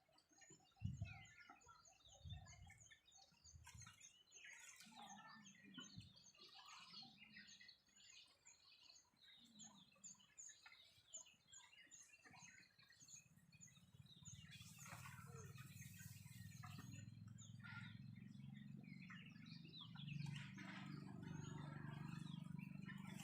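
Faint birdsong from several small birds chirping, with one bird repeating a high note rapidly and evenly through the first half. From about halfway a low steady hum comes in and grows louder towards the end.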